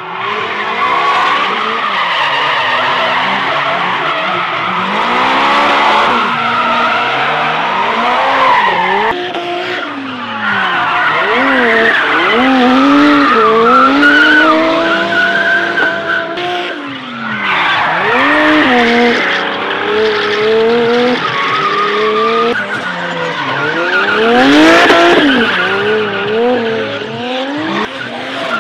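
Drift car engine revving hard, its pitch climbing and dropping again and again as the throttle is worked, over a steady hiss of tyres skidding and squealing.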